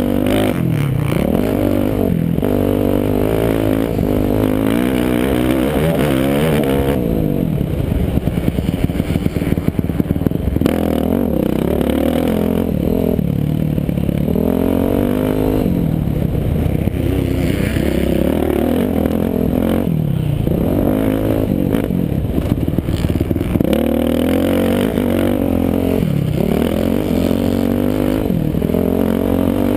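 Four-stroke Yamaha motocross bike engine racing on a dirt track. The engine is held open and revs up, then drops off, over and over through the gears and into the corners, with the chassis rattling over the bumps.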